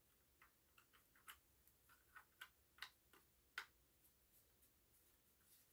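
Faint, irregular clicks and taps from handling a smoke alarm's parts as a piece is fitted back onto the unit, the sharpest tap about three and a half seconds in.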